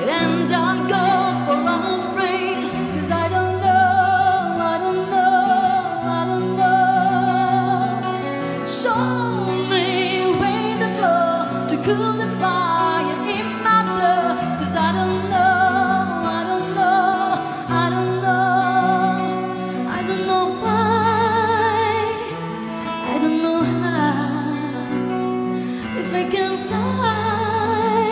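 A woman singing with vibrato to fingerpicked acoustic guitar accompaniment, performed live.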